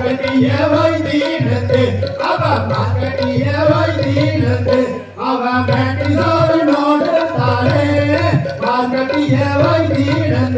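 Valli kummi folk song: a voice singing a Tamil melody over a steady hand-drum beat, with a short break about five seconds in.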